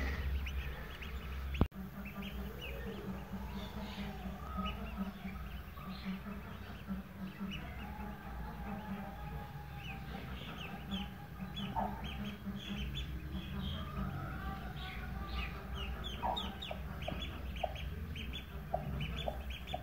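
Newly hatched ducklings peeping in short, high cheeps, coming thick and fast from about halfway through, with a broody hen's low clucks beneath.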